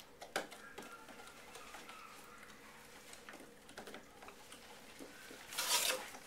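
Dog sniffing and nosing around inside a cardboard box, with light scuffs and taps against the cardboard and a louder rush of noise about five and a half seconds in.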